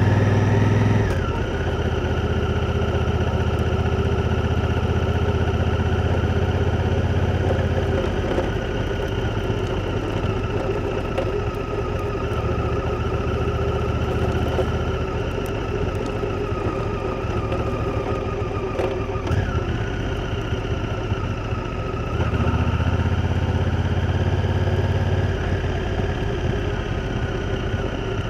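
Honda Africa Twin's parallel-twin engine running under way. It is loudest for the first second, then drops as the throttle eases, with a quieter middle stretch and a louder pull for about three seconds near the end.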